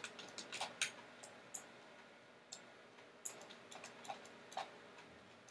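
Faint, irregular clicking of a computer mouse and keyboard: about a dozen short, sharp clicks spaced unevenly.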